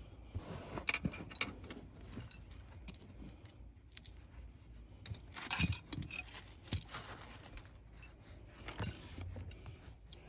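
Metal parts and tools being handled: scattered metallic clinks and light rattles, with a longer scraping rustle about five and a half seconds in.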